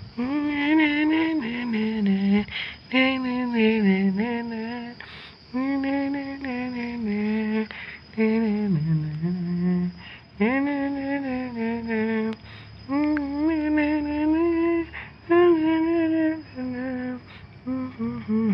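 A person humming a slow, lullaby-like tune in long held notes.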